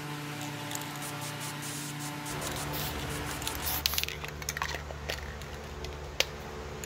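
Aerosol spray paint can hissing as paint is sprayed on, with the hiss easing off a little past halfway through. A few sharp clicks follow as the can is handled.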